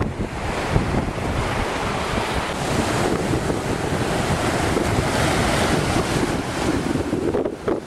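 Wind buffeting the microphone over the steady wash of the sea, with gusty rumble throughout and a brief lull near the end.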